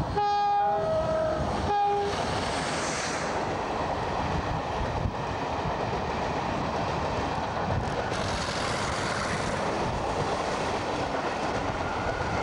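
British Rail Class 47 diesel locomotive sounding its two-tone horn, three notes alternating between two pitches over about two seconds, then the locomotive and its train of coaches passing close by, wheels clattering over the rails, a steady loud noise to the end.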